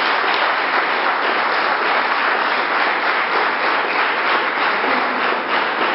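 Audience applauding: a steady, dense sound of many hands clapping.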